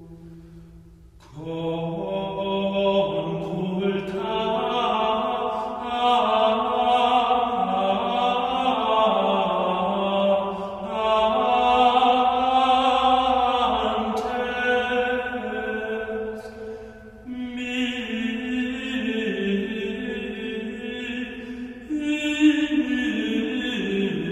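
Slow, chant-like background music of long held notes that shift every few seconds; it comes in about a second in and dips briefly about two-thirds of the way through.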